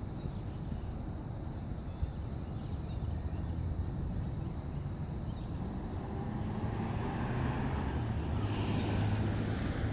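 Steady low rumble of distant vehicles, with a hiss that swells up in the second half and eases off at the very end.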